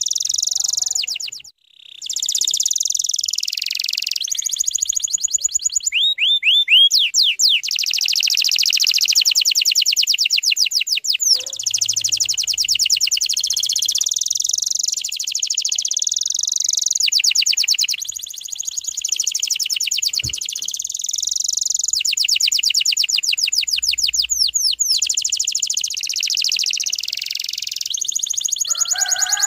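Domestic canary singing a long, continuous song of fast trills and rolls, with a short break about one and a half seconds in.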